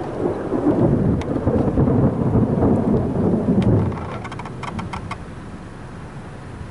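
Thunder rumbling from a supercell thunderstorm, loud and uneven, easing off about four seconds in. A few faint clicks follow just after.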